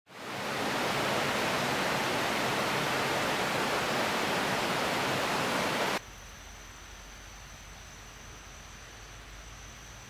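A loud, steady rushing noise, like heavy water or rain, fading in over the first second and cutting off abruptly about six seconds in. After the cut a much quieter hiss remains, with a faint steady high whine.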